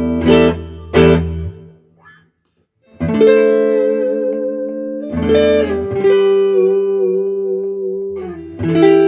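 Fender Modern Player Jazzmaster electric guitar on its neck pickup, played clean with a little reverb. Two short chord stabs, a pause of about a second, then three chords left to ring; the middle chord wavers in pitch.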